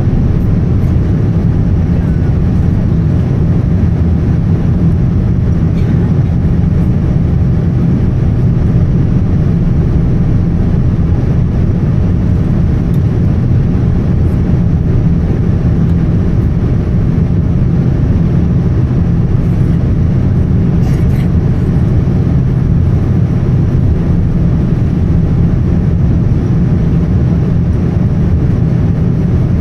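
Boeing 787-10 in flight, heard inside the cabin: a loud, steady low rumble of jet engines and rushing air.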